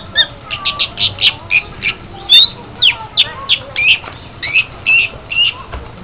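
Caged white-rumped shama calling, a quick run of short high chirps and whistled notes, some sliding up or down, about four a second.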